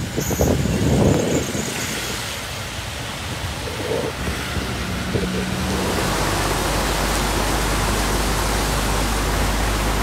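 A vehicle driving through deep floodwater, with a steady low engine rumble under an even rush of water and wind from about six seconds in. Before that, road noise from a vehicle moving along a wet road.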